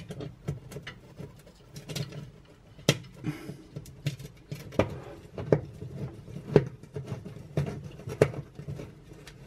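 Irregular light clicks and taps of hands working small screws and a screwdriver against the fan element and back panel inside an oven cavity, with the sharpest knocks a little after the middle and near the end.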